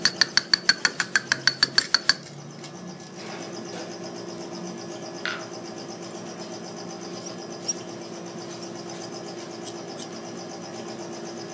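Hand-worked stainless-steel bone and tooth mill clicking in a rapid, regular run, about six clicks a second, as it grinds the extracted tooth and bone into graft particles. It stops abruptly about two seconds in. A steady low hum follows, with a couple of light metal taps of an instrument in the steel cup.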